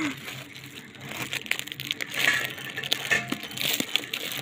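Aluminium foil and plastic food-delivery packaging crinkling and rustling with irregular crackles as hands work open a tied foil packet.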